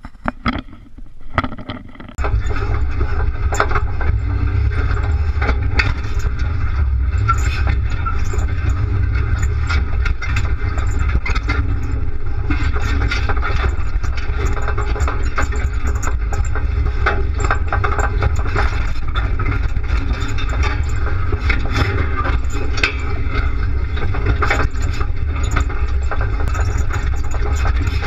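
Off-road 4x4 being driven over rough dirt, heard from a bumper-mounted camera: a few light clicks, then about two seconds in a loud, steady low drone of engine and drivetrain starts suddenly, with many knocks and rattles from the body and the mount.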